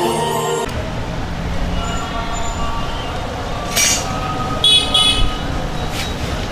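Intro music cuts off just under a second in, leaving a steady rumble of road traffic, with a sharp knock about four seconds in and two short high-pitched toots just after.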